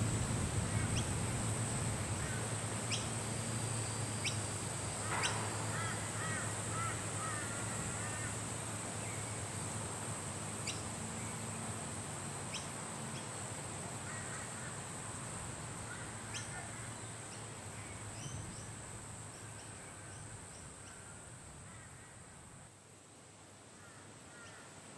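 Birds giving short chirping calls in scattered bursts, over a steady high-pitched drone, with a few sharp ticks.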